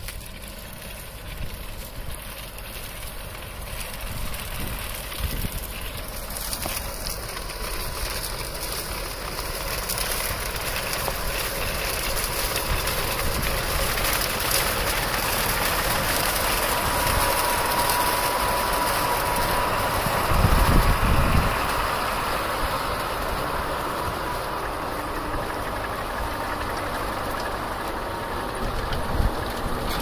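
Tractor engines and a Grimme potato harvester running while lifting potatoes, a steady machinery noise that grows louder as it comes close. A brief deeper rumble comes about twenty seconds in.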